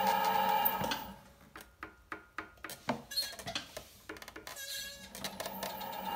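The electric potter's wheel's steady motor hum stops about a second in. A series of light knocks, taps and short scrapes follows as the leather-hard clay teapot body and a metal trimming tool are handled. Near the end the hum builds up again as the wheel spins back up.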